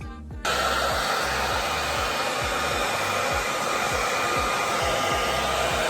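A handheld hair dryer is switched on about half a second in and blows steadily at full power, a loud even rush with a faint motor whine. Background music with a steady kick-drum beat continues underneath.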